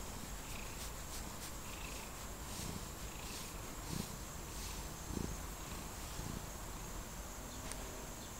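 Domestic cat purring steadily while being stroked: a low, even rumble with soft regular pulses.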